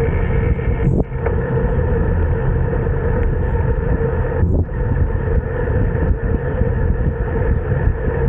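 Steady wind and road rush from a road bike riding at speed, with two brief dips, about a second in and again about four and a half seconds in.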